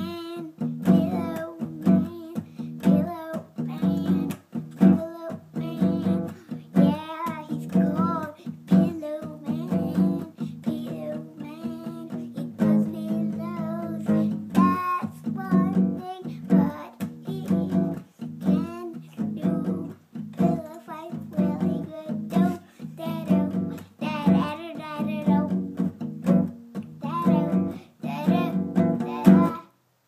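Acoustic guitar strummed in a steady rhythm, with a voice singing along.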